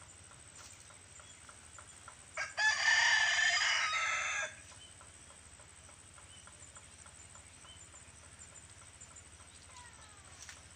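A rooster crowing once, a single call about two seconds long, a few seconds in.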